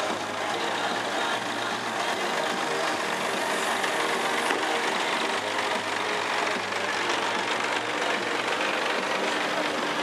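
An engine running steadily at a constant speed, its pitch and loudness unchanging.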